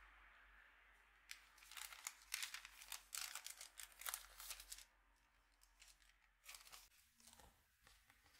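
A thin paper fortune slip being handled and folded: a few seconds of dense crinkling and rustling, then a few lighter rustles near the end.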